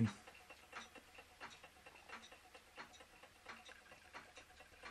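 Small model Stirling engines running, heard as a faint, regular ticking a little more than once a second.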